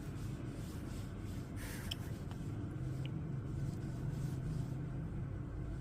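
Quiet room tone: a steady low hum, with one brief soft rustling noise about one and a half seconds in and a couple of faint ticks after it.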